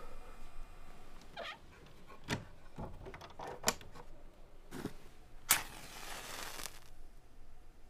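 A few small clicks and knocks from hands handling something, then a match struck about five and a half seconds in, flaring with a hiss for about a second.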